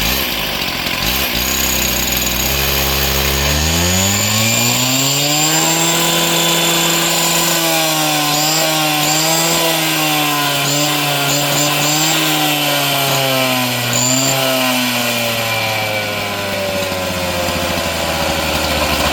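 Stihl TS 420 cut-off saw's single-cylinder two-stroke engine, freshly rebuilt with a new crankshaft, bearings and seal and a rebuilt carburetor, idling, then revved up over a few seconds, held at high revs with the pitch wavering for about ten seconds, and let drop back toward idle near the end.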